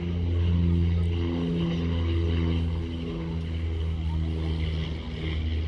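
A loud, steady, low-pitched engine drone that wavers a little in pitch.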